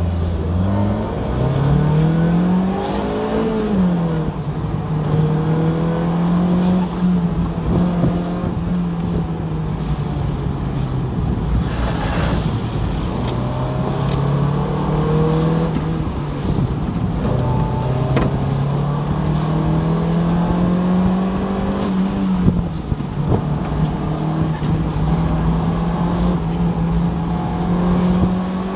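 Mazda Miata's four-cylinder engine heard from inside the cabin during an autocross run. It revs up hard, drops sharply with a gear change about four seconds in, then stays high, falling and rising again and again as the throttle is lifted and reapplied through the course. Steady road and tyre noise runs underneath.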